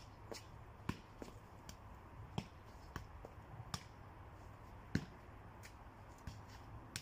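A football being juggled: a string of sharp, irregularly spaced thuds as the ball is kicked up again and again, the loudest about five seconds in.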